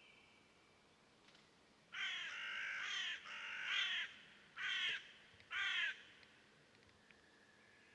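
A bird giving a run of loud, harsh cawing calls, starting about two seconds in, the first two long and drawn out and the last two short and separate. A faint thin whistled note from another bird comes in near the end.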